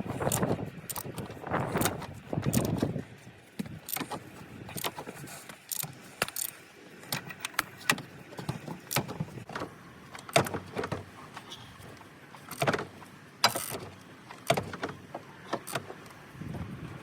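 Irregular metallic clicks and clinks of hand tools and metal engine parts being handled, with a few duller knocks in the first few seconds.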